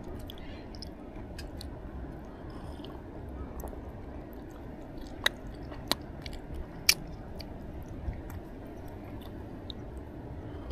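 A person chewing food close to the microphone, with a few sharp clicks about halfway through.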